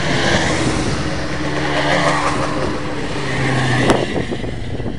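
Racing motorcycles passing one after another at close range, engines running hard, each one swelling as it goes by. A sharp knock comes about four seconds in.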